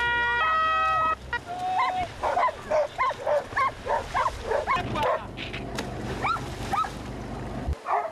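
A two-tone siren alternating high and low for about the first second, then dogs barking and yelping excitedly in quick succession over a low steady drone that cuts off abruptly near the end.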